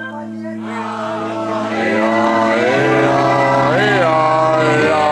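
Live band music: a held chord sounding under singing, with the voice coming in about a second in. The chord shifts near the middle and again near the end.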